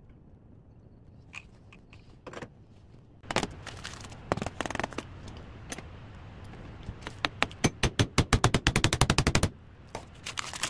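Clear plastic film crinkling and crackling as it is handled around a flat slab of grated garlic paste, starting about a third of the way in and building to a fast run of sharp crackles about ten a second.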